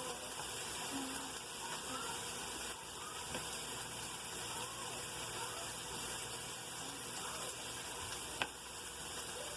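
Diced peppers and onions sizzling steadily in a skillet on the stove, with one sharp knock about eight seconds in.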